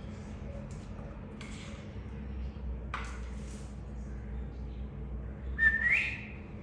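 Pet lovebirds calling: a few short scratchy chirps, then near the end one loud rising whistled call.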